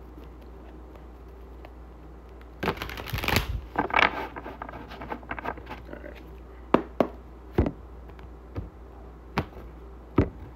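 Tarot cards being shuffled by hand: two quick rustling bursts of riffling about three to four seconds in, then about five separate sharp clicks of cards against the table.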